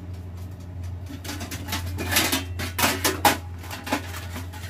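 Wire oven rack rattling and clanking against the metal of a countertop electric oven: a run of sharp metallic clanks lasting about two seconds, starting a second in, over a steady low hum.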